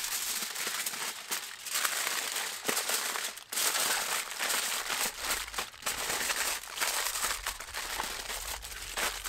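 Aluminium foil crinkling and crackling as it is folded and crimped by hand around a parcel of cut vegetables.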